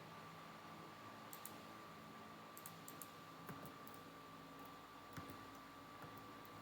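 Faint, scattered clicking at a computer, in small clusters, over a faint steady high whine.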